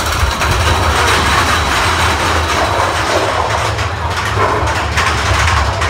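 Mine-train roller coaster running along its track, heard from on board: a steady rumble and clatter of the wheels on the rails with a low hum underneath.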